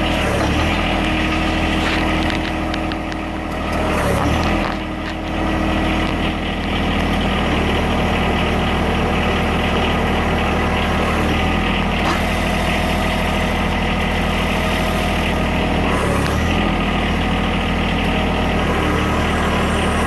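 John Deere 1023E's three-cylinder diesel engine idling steadily while the backhoe's hydraulic control levers are worked. The engine note shifts briefly about four seconds in and again near sixteen seconds.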